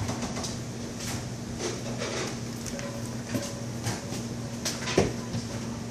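Restaurant room tone: a steady low hum with scattered faint clinks and knocks, and one sharp knock about five seconds in, the loudest sound.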